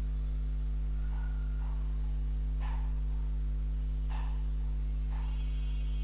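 Steady low electrical mains hum with its evenly spaced overtones, unchanging throughout, with a few faint brief sounds over it.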